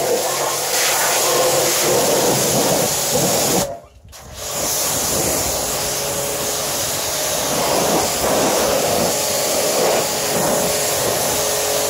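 Galilee GPHW 2500 pressure washer spraying a jet of water onto a tractor's cab and bodywork: a steady hissing spray with a steady hum underneath. It breaks off for about half a second around four seconds in, then resumes.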